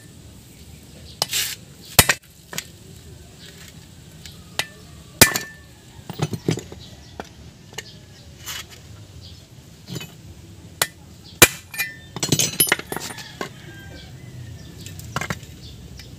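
Sharp metallic clinks and knocks at irregular intervals as a steel pipe drift and tools are worked on a Suzuki Multicab's front hub and wheel bearing, with a quick run of rattling clinks about twelve seconds in.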